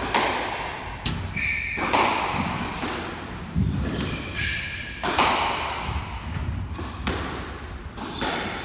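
Squash ball being struck and hitting the court walls in a rally, a loud sharp hit every one to two seconds, each ringing briefly in the court. Between the hits, short high squeaks from players' shoes on the wooden floor.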